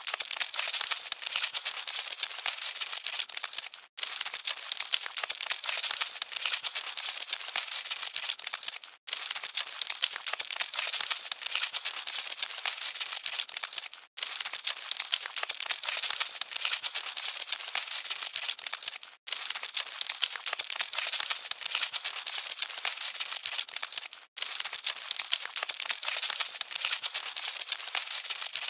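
Cockroaches scuttling: a dense, dry crackling and scratching rustle, repeated as a loop about five seconds long with a short silent gap between repeats.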